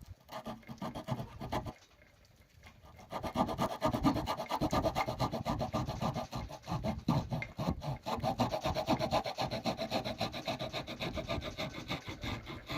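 Saw blade of a Victorinox Swiss Army pocket knife cutting through a piece of wood with quick back-and-forth strokes. After a few strokes there is a short pause about two seconds in, then steady, continuous sawing.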